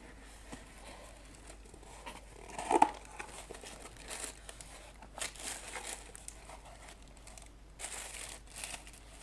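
A cardboard box being opened by hand: packing tape torn, cardboard flaps pulled open and the plastic packaging inside crinkling. A sharp tear a little under three seconds in is the loudest sound.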